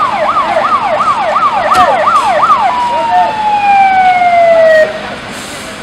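Fire engine siren sounding loudly in a fast up-and-down yelp, about two to three sweeps a second. Partway through it switches to one long tone that slides down in pitch for about two seconds, then cuts off.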